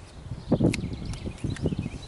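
Trauma shears cutting away an old rubber handlebar grip: a few sharp snips among irregular knocks and handling rustles, starting about half a second in.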